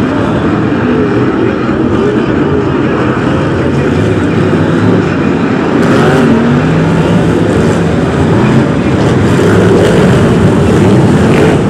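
A pack of BriSCA F1 stock cars' V8 engines racing together, many engines overlapping in a loud, continuous blare whose pitches rise and fall as the cars accelerate and pass. It gets a little louder in the second half.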